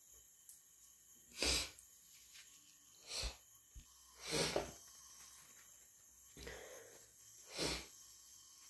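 A person sneezing five times in a row, the sneezes a second or two apart: allergic sneezing from a cat allergy.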